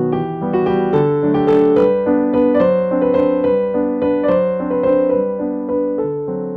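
Background piano music: a melody of single notes over lower chords at an even level.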